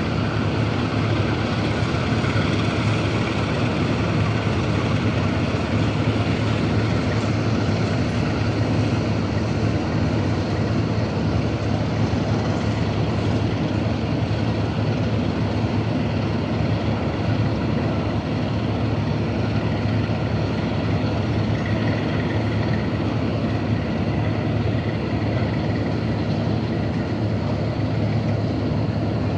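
Romanian 060-DA (LDE 2100) diesel-electric locomotive's Sulzer 12LDA28 diesel engine running steadily with a deep, even drone.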